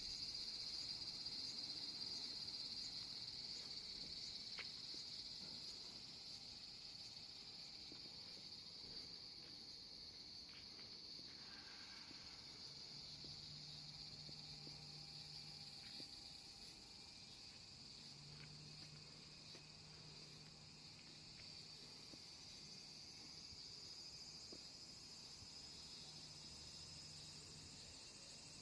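A dense chorus of cicadas singing steadily, a continuous high-pitched drone.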